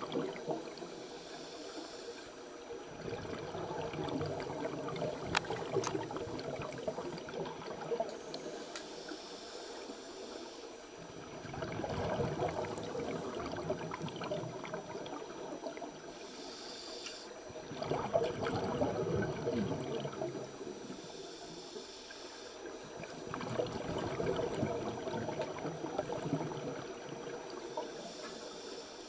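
A scuba diver breathing through a regulator underwater: a short hiss on each inhalation, then a bubbling rumble as the exhaled air escapes, cycling about every five to seven seconds.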